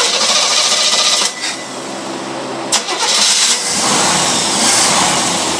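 Test engine running on a Rochester two-barrel marine carburetor just after starting, with the choke open. Its speed rises and falls unevenly, with brief dips, and drops lower about three and a half seconds in.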